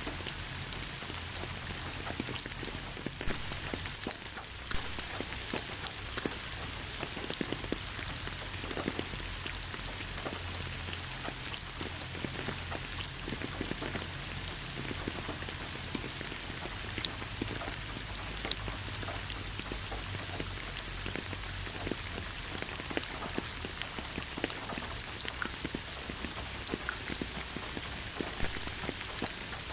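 Steady rain falling, with many distinct drops pattering and tapping on a surface and a low rumble beneath.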